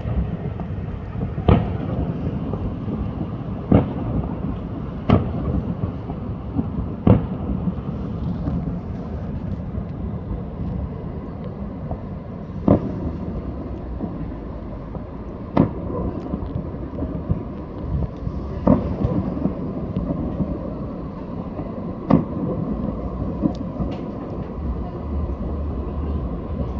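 Fireworks shells bursting: about eight sharp bangs at irregular intervals of a few seconds, over a steady low rumble.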